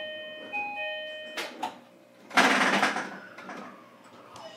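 Door-closing chime on a JR Kyushu BEC819 DENCHA train: a two-note chime, high then low, sounding twice about a second apart and stopping about a second and a half in. Two clicks follow as the doors shut, then a short loud hiss of air that fades, with a faint falling tone after it.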